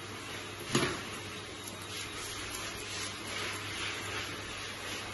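Steady background hiss with a low hum, a single sharp knock about a second in, then faint snips of grooming scissors trimming a Welsh Terrier's head coat.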